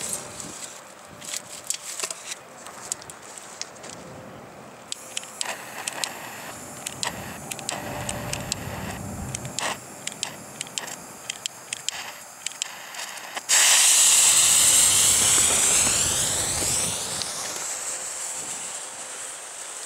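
Scattered clicks and scuffs of the mortar tube and fuse being handled on gritty ground, then about two-thirds of the way through a sudden loud hiss as the fuse of the 4-inch firework shell is lit and sputters, with a sweeping, phasing tone, fading as it burns down.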